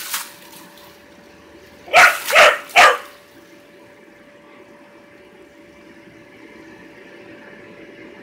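Dog barking three times in quick succession about two seconds in, after a short splash of hose spray at the start.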